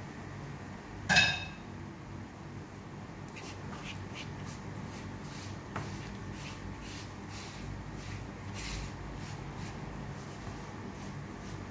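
A single sharp clink of dishware about a second in, ringing briefly, followed by a run of faint irregular high ticks over a steady low hum.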